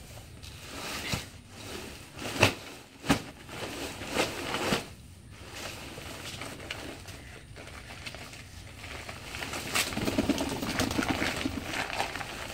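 Gardening handling sounds: a few sharp knocks in the first five seconds, then a longer stretch of scraping and rustling from about ten seconds in, as soil is put into a garden pot.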